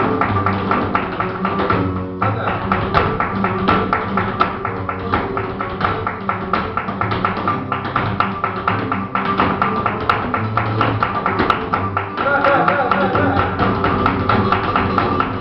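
Flamenco guitars playing a caña under rapid zapateado footwork, the dancer's shoes striking the floor in quick, dense taps throughout.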